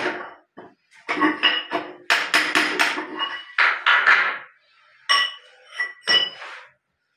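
Hammer blows on a steel chisel, chipping hardened cement out of a ceramic squat toilet pan, in quick runs of strikes with a scraping stretch between. Near the end come a few ringing metallic clinks.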